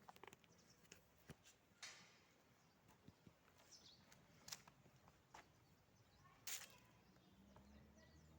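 Near silence, broken by scattered faint clicks and ticks, a few slightly louder ones about two, four and a half and six and a half seconds in.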